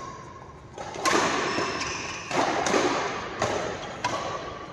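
Badminton rally: a run of sharp thuds about a second apart, racket strikes on the shuttlecock and players' footfalls, each ringing on in the hall.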